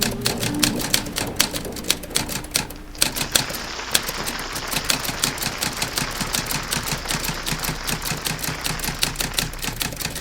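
Typewriter keys clacking in quick, irregular strokes, with a brief pause about three seconds in.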